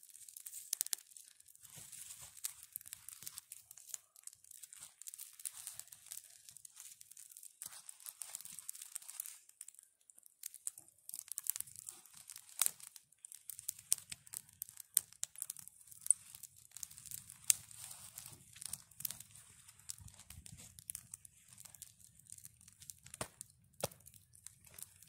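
Small fire of dry twigs and tinder just catching, crackling with many sharp irregular pops, while dry sticks are snapped and fed into it.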